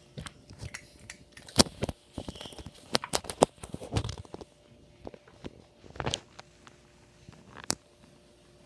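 Tabby kitten crunching small pieces of dry food, a series of sharp irregular crunches that come thickest in the first half, then a couple of lone ones.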